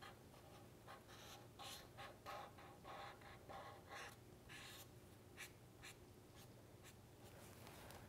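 Black marker drawing on paper: faint, quick scratchy strokes that come thick and fast for about five seconds, then more sparsely, over a low steady hum.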